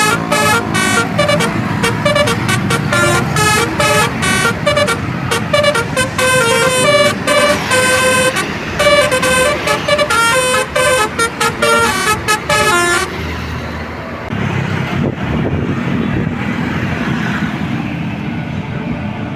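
Bus 'telolet basuri' musical air horn playing a fast melody of short, changing notes for about thirteen seconds, then cutting off, leaving road traffic noise.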